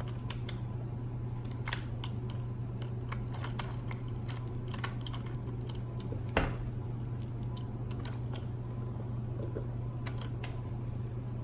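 Scattered small clicks and taps of tool and parts while a pinion gear is fitted and meshed with the spur gear of an RC truck, over a steady low hum; one sharper click about six seconds in.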